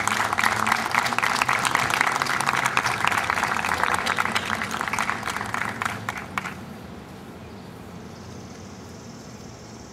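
Crowd applauding steadily, stopping fairly suddenly about six and a half seconds in.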